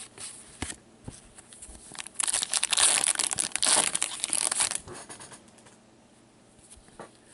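A foil trading-card pack wrapper of 2016 Goodwin Champions is torn open and crinkled by gloved hands, in loud crackling bursts for about two and a half seconds in the middle. A few light clicks of cards being handled come before it.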